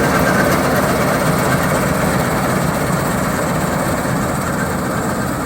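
Combine harvester running steadily as it cuts paddy, a dense engine and machinery noise that slowly gets a little quieter.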